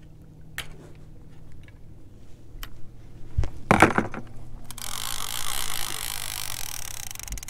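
Trolling reel letting out line, its clicker ratcheting in a fast, even buzz from about five seconds in. Before that come a few handling knocks, the loudest a short clatter about three and a half seconds in, over a low steady hum.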